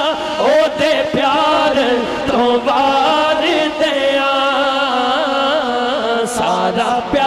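Male voice singing a Punjabi naat in a slow, ornamented melody, with long held notes that waver and bend in pitch.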